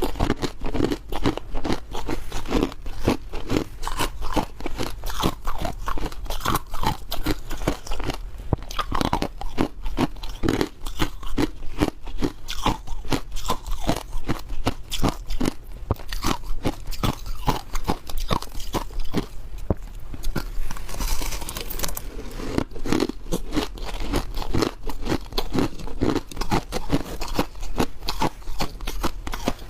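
Ice being bitten and chewed close up: a dense, uneven run of sharp crunches, several a second.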